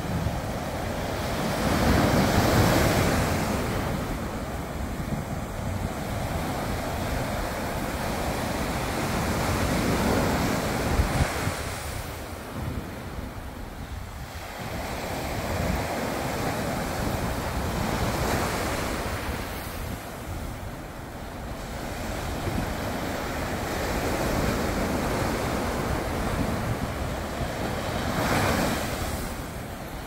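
Sea surf breaking and washing up a sandy beach, swelling and ebbing every several seconds, with sea wind buffeting the microphone.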